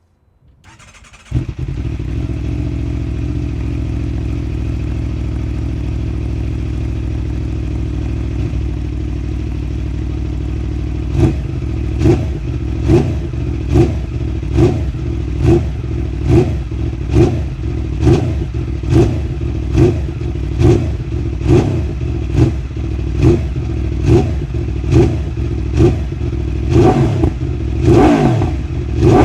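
Aprilia RSV4 V4 engine with an SC-Project CR-T titanium slip-on exhaust: cranked on the starter, it catches about a second in and idles steadily, then from about the middle is blipped on the throttle about once a second, the last few revs higher.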